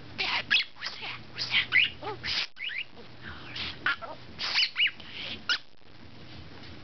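Budgerigar chattering in a quick run of chirps, warbles and sweeping whistles, which stops about five and a half seconds in.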